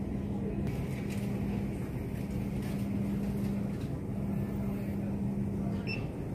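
Steady low hum with a haze of background noise, the room tone of an airport shop, and a faint short beep near the end.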